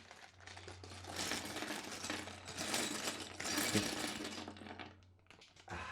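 Small plastic Lego pieces rattling and clicking against each other in a dense run of clicks that stops near the end.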